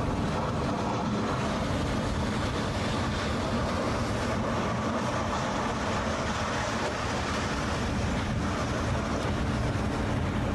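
Strong storm wind from a bomb cyclone blowing, a steady rushing noise with a low hum under it.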